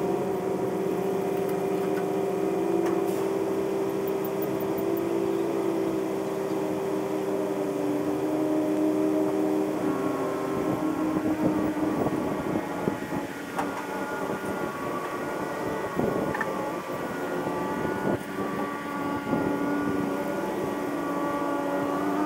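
Kubota KX033 compact excavator's diesel engine running steadily. Its pitch shifts down slightly about ten seconds in, and a few knocks and clunks follow.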